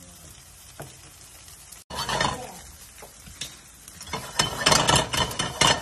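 Cooking on a gas hob: a wooden spoon stirring risotto in a small pan and a frying pan of diced pumpkin being handled, with scraping and clattering. It is faint for about two seconds, breaks off briefly, then turns loud and busy, densest in the last second and a half.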